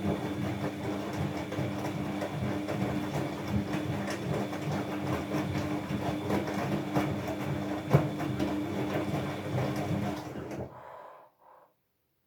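Washing machine drum running during rinse or spin, with a squeaking, scraping noise over a steady hum and a sharp click about eight seconds in; it breaks off near the end. The owner suspects a worn drum bearing or bearing washer.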